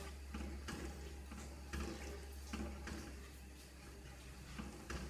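A wooden spatula stirring thin yogurt-and-water kadhi in a nonstick pan, sloshing and scraping in a steady rhythm of about two to three strokes a second.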